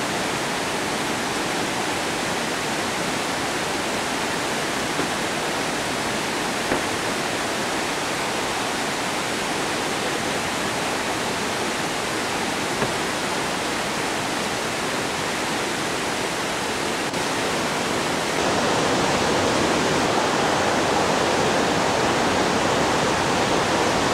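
Waterfall crashing down a high rock face: a steady, even rush of falling water that grows a little louder and fuller about three-quarters of the way through.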